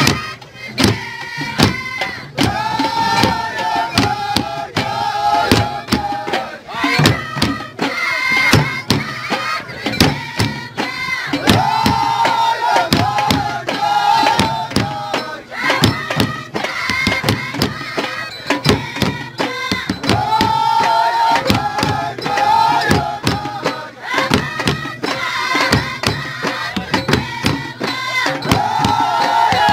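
Amazigh Ahwach music: several hand-beaten frame drums play a fast, driving rhythm under a group of voices singing. The sung phrases recur every few seconds over the constant drumming.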